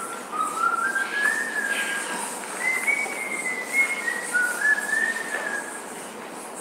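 A person whistling a slow tune of held notes that step upward through the first few seconds, then dip and climb again, over a steady hiss.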